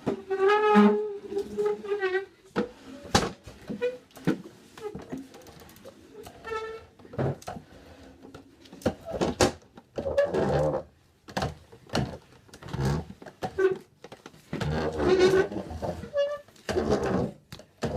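Chairs scraped across a hard floor in a run of short squeals and scrapes, some with a wavering, horn-like squeak, broken by sharp knocks of chair legs.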